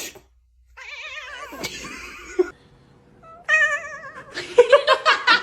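A domestic cat making strange warbling meows: a long call with a quavering, wobbling pitch, then a shorter steadier call, then a quick run of loud stuttering chirps near the end.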